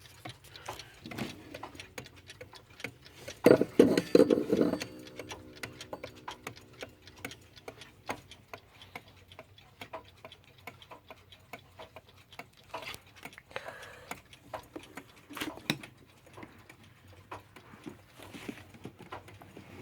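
Mechanical clocks ticking, many ticks overlapping. About three and a half seconds in there is a loud clatter, followed by a brief ringing tone that fades away, and a few more knocks come later.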